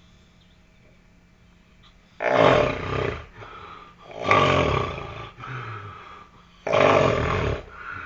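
A man snoring heavily in his sleep: three loud snores, each about a second long and roughly two seconds apart, the middle one trailing off more slowly.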